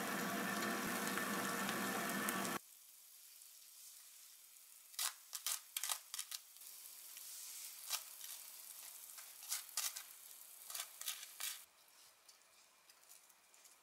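A loud steady hiss that cuts off suddenly after about two and a half seconds, then a wooden spoon scraping jam across toasted bread in a string of short strokes.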